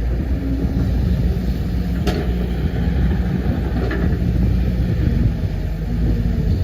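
Heavy diesel engine of an excavator running steadily under load, with a sharp click about two seconds in and a fainter one about four seconds in.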